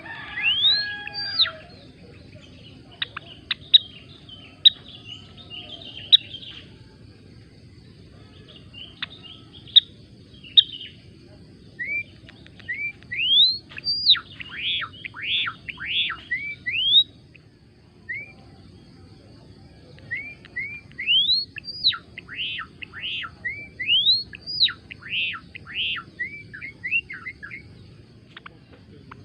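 Gelatik belong songbird singing: clusters of sharp rising whistles followed by quick falling notes, in bursts of several seconds with short pauses between.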